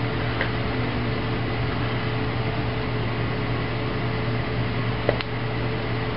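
Steady mechanical hum: a constant low drone over an even rushing noise, with one light knock about five seconds in.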